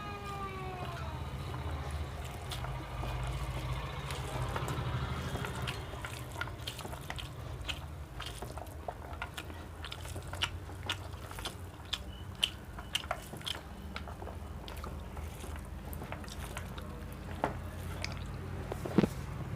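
Close-up eating sounds: chewing with frequent sharp mouth clicks and smacks, over a steady low hum. A brief pitched call sounds right at the start.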